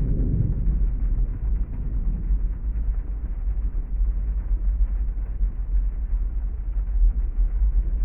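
Steady low rumble of a heavy thunderstorm, rain with distant thunder. A roll of thunder fades out in the first half second.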